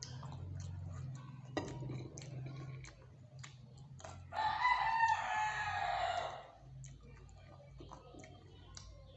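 A rooster crowing once, a single drawn-out call of about two seconds a little before the middle, the loudest sound here. Around it come scattered sharp crunches of tortilla chips being chewed.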